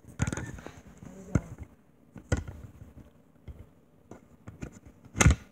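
A few sharp knocks and bumps with faint rustling between them, the loudest knock near the end.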